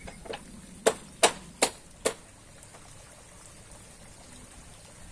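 A freshly caught carp thrashing in an angler's hands, its body and tail slapping about twice a second in a run of five sharp slaps that stop about two seconds in.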